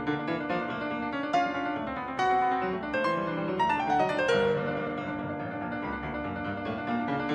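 Solo grand piano being played: a busy passage of many notes, with a louder struck chord about two seconds in and a quick descending run of notes about halfway through.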